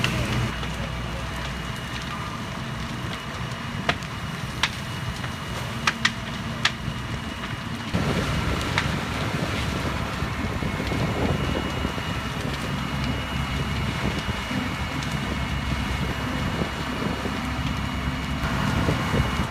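Fireground noise: the steady rumble of fire engines running at a burning house, with several sharp pops between about four and seven seconds in. About eight seconds in a heavier low rumble comes in, with wind buffeting the microphone.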